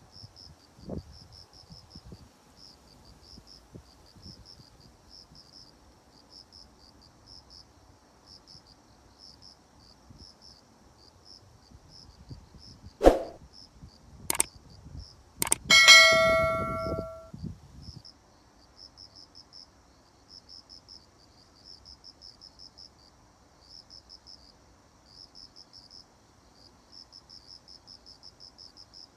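Crickets chirping in steady, repeated high trills. About halfway through, a couple of sharp clicks are followed by a loud metallic clang that rings for about a second and a half before dying away.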